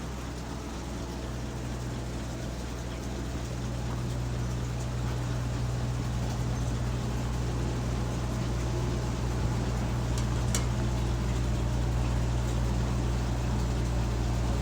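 Heavy machinery running with a steady low drone that slowly gets louder, and a single sharp click about ten seconds in.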